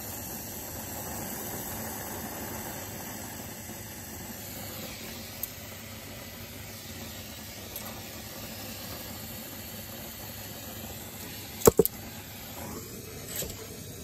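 Lit brazing torch flame hissing steadily, with two sharp clicks close together about two seconds before the end.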